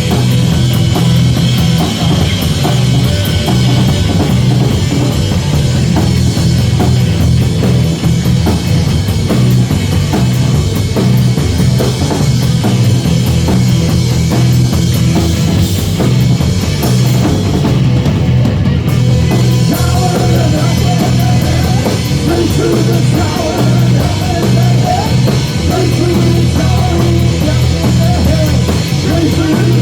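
Loud live rock band playing, with a drum kit and a heavy, dense bass line. A higher wavering line comes in about twenty seconds in.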